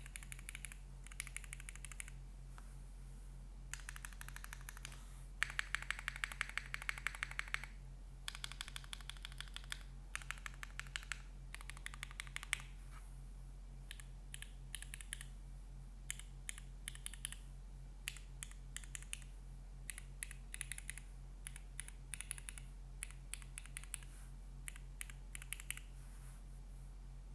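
Typing on a Cycle 7 mechanical keyboard with an aluminium plate and no foam, fitted with lubed and filmed ks-x47 switches with Cherry Old Black tops. Rapid runs of clacky keystrokes come in bursts with short pauses between, the densest run about six seconds in.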